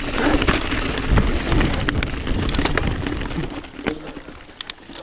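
YT Jeffsy 29 AL mountain bike rolling fast down a leaf-strewn dirt trail: tyre noise over dirt and leaves with sharp rattles and knocks, and wind rumbling on the microphone. The noise eases off after about three and a half seconds, leaving scattered clicks.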